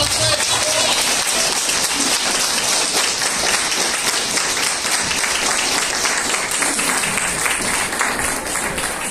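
Hall audience applauding steadily with many hands clapping, starting to die down near the end.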